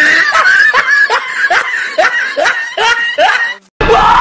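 Snickering laughter: a quick run of short, rising 'hee' sounds, about two to three a second, that cuts off suddenly near the end and gives way to a loud new burst of sound.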